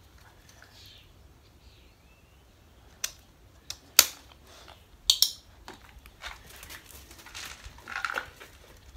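Sharp plastic clicks of a dog harness's buckles being snapped shut, a few in the middle, the loudest about four seconds in. Near the end, light ticks of treats scattered onto a concrete floor.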